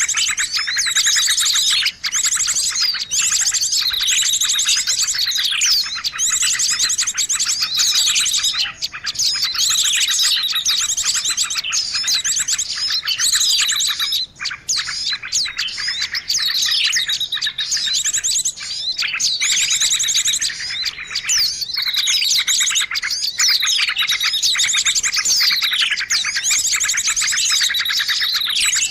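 Songbird song: rapid high chirps and trills, with falling sweeps repeating every two to three seconds and no real pause.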